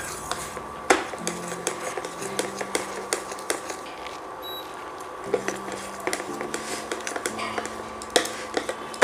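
Flat spatula scraping and knocking against a stainless steel kadhai while stirring a thick cashew-sugar paste, in irregular clicks and scrapes. The paste is being cooked down until it thickens into one mass and leaves the sides of the pan.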